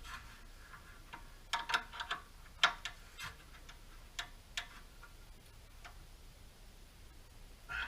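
An open-end 12 mm wrench clicking and clinking against a steel brake line flare nut as the fitting is worked tight, a string of about nine sharp, irregularly spaced metal clicks bunched in the first half.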